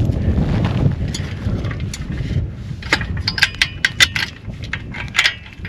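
Low rumbling wind-like noise, then a quick run of light metallic clicks and clinks, like metal gear being handled, in the second half.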